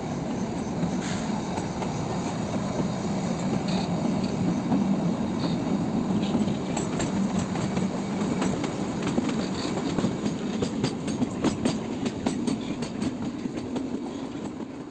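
Kalka–Shimla narrow-gauge toy train running, heard from a carriage: a steady rumble of wheels on the rails. From about six seconds in it is overlaid by frequent sharp clicks and rattles.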